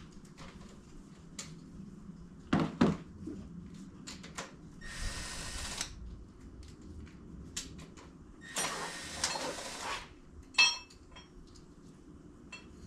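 Hand tools and metal engine parts clinking and knocking during work on a Subaru engine's intake area, with a few sharp clinks, one of them ringing briefly near the end, and two rasping stretches of about a second each.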